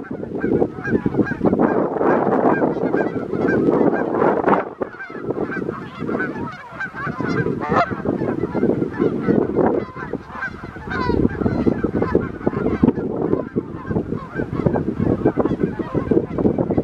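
A flock of birds honking, many calls overlapping in a loud, continuous chorus that eases briefly about five seconds in and again about ten seconds in.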